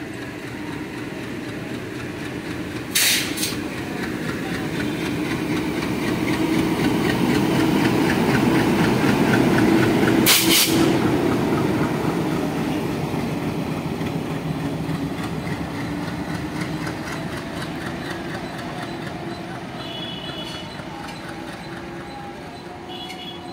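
A train hauled by ALCO WDM3A diesel locomotives with 16-cylinder ALCO 251 engines passing close by: engine rumble and a rapid clatter of wheels over the rails, loudest about ten seconds in and then fading away. Two short sharp hisses stand out about three and ten seconds in, and a faint high squeal comes near the end.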